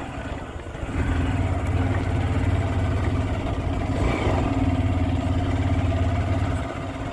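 A vehicle engine running at a steady pitch on the road, coming in about a second in and easing off near the end.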